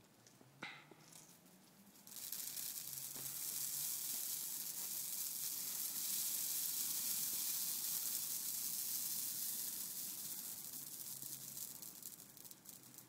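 Dry heather shrub catching and flaring up in a metal fire basket: a loud hissing crackle of burning twigs and needles starts suddenly about two seconds in, holds, and dies down over the last few seconds.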